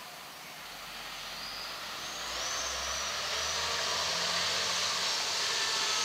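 Ford Trucks refuse truck with a Hidro-mak body approaching, its diesel engine and running noise growing steadily louder; a low engine hum joins about a second and a half in.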